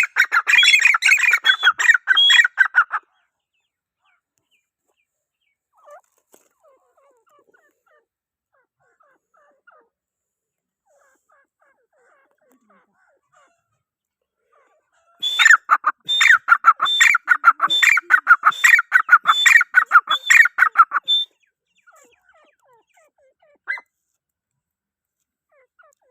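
Grey francolin calling: a fast run of loud, harsh, rapidly repeated notes for about three seconds at the start, then again for about six seconds in the middle, with near quiet between the two bouts.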